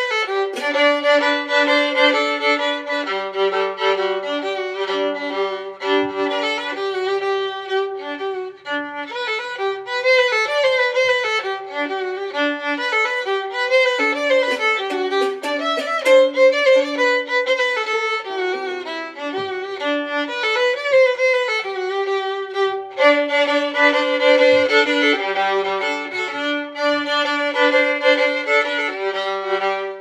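Background music with a violin playing a melody over lower accompanying notes.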